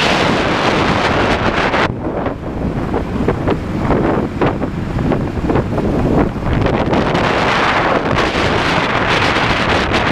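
Heavy wind rushing over the microphone of a camera on a moving motorcycle, mixed with road and engine noise. From about two seconds in, the high hiss eases for a few seconds, leaving uneven low buffeting, then it builds back up toward the end.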